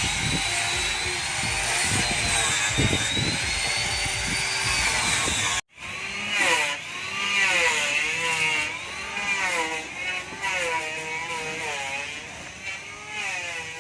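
An electric power tool working wood, a high whine that wavers slowly in pitch with knocks beneath it. It cuts off suddenly about six seconds in, and a singing voice with wavering, vibrato-like pitch follows.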